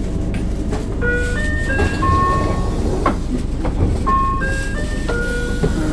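Door chime of a 2007 Hino Blue Ribbon II city bus: a short electronic melody of stepped tones, starting about a second in and starting again near the end, over the bus's engine rumble, with a couple of knocks midway.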